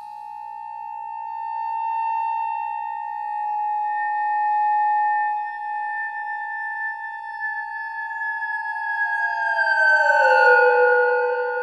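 Ondes Martenot quartet holding long, steady, pure tones that slowly swell and fade. About eight seconds in, two of the voices glide slowly downward and settle on lower pitches.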